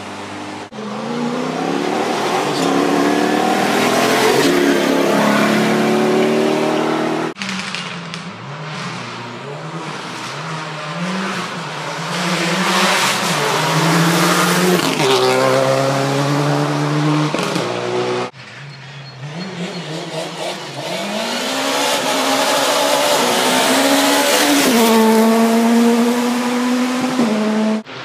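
Rally cars at full throttle on a gravel stage, in three separate passes that each cut off abruptly. In each, the engine revs up through the gears, its pitch climbing and then dropping at every shift, over a hiss of tyres on loose gravel.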